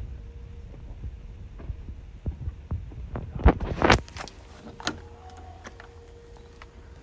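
Volvo EC210 excavator's diesel engine idling with a low, steady throbbing hum, with two sharp knocks a little past halfway.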